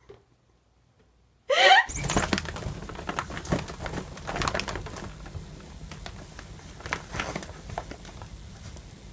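Near silence, then a brief sliding cry about a second and a half in. It is followed by rustling, scratching and soft thuds from a cat climbing a hanging shoe organizer.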